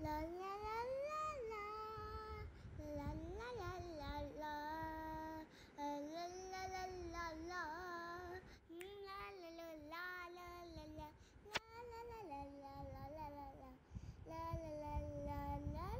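A high voice singing a slow melody alone, holding notes and sliding between them with short breaks.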